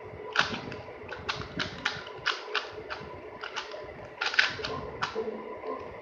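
A Rubik's Cube being turned fast by hand: its plastic layers clack as they snap round, a few irregular clicks a second, with the loudest cluster about four seconds in.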